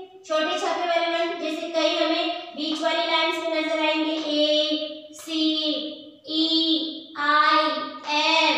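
A woman chanting the lowercase letter names of the English alphabet in a sing-song voice, drawing out each letter in turn.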